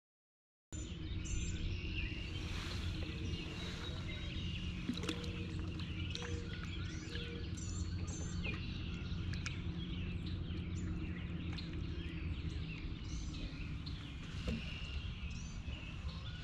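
Wild birds chirping and calling over a steady low rumble. The sound cuts in a moment after the start.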